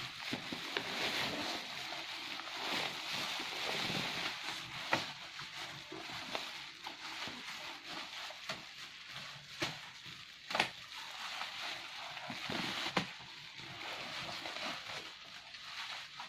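Plastic bubble wrap being handled and pulled at by hands, crinkling and rustling steadily, with about four sharp snaps along the way.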